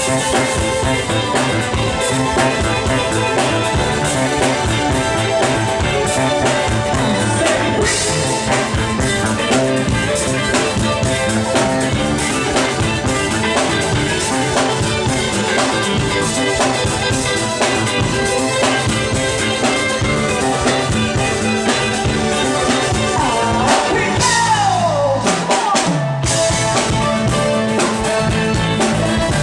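A live rock band playing, with five-string electric bass and drum kit. About three-quarters of the way through, a sliding note falls in pitch and the band briefly thins out before playing on.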